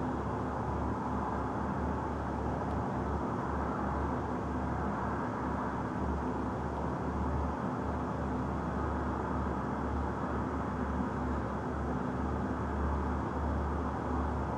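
Steady rumble of distant city traffic, an even wash of noise with no changes. The fireworks' bangs do not come through as separate reports.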